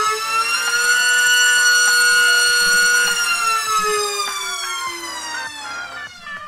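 iFlight XING2 2207 2755KV brushless racing motor spinning a Gemfan Hurricane 51433 three-blade 5-inch prop on a thrust stand, during a throttle ramp. The loud whine rises to full throttle, holds there for about two seconds, then falls steadily in pitch as the throttle ramps back down.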